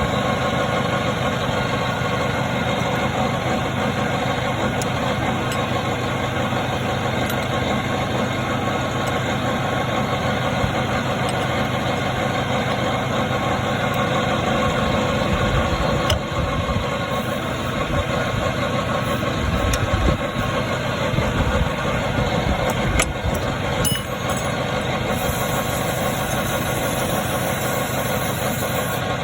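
Toyota forklift engine idling steadily, with a few clicks and small knocks in the last third.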